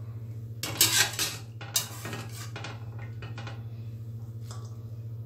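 Metal strainer clattering and scraping against a metal kadai as cauliflower florets are scooped out of their turmeric-and-salt soaking water: a cluster of clinks about a second in, a few lighter taps after, over a steady low hum.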